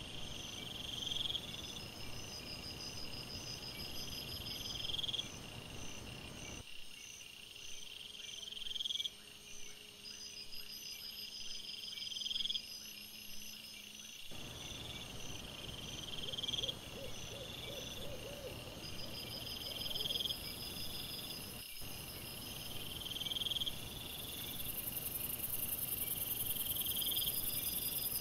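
Night insects chirping: a high chirp repeating every few seconds with a faster pulsed trill above it, over a steady hiss.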